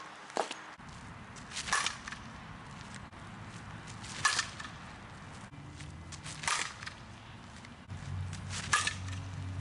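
Softball bat striking pitched softballs: four sharp cracks about two seconds apart. Just before them, a single pitch smacks into a catcher's mitt.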